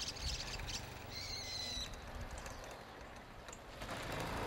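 Birds chirping over faint outdoor background noise, with one longer steady call about a second in.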